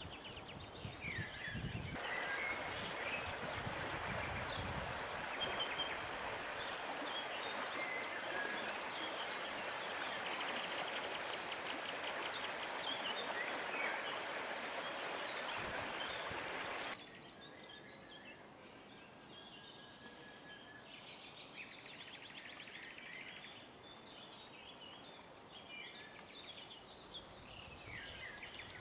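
Small river flowing with a steady rushing hiss, with birds singing and chirping over it. The rushing starts a couple of seconds in and cuts off suddenly a little past halfway, leaving quieter birdsong.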